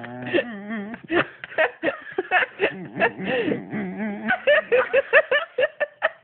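A person laughing in quick, broken bursts of giggles and snickers.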